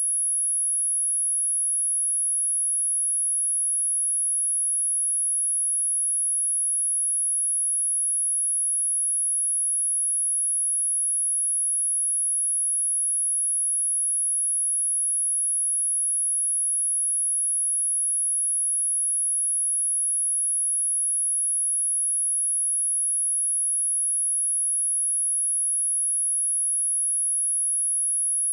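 A steady, high-pitched pure sine tone at 10717 Hz, holding one pitch and level throughout, played as a speaker test tone.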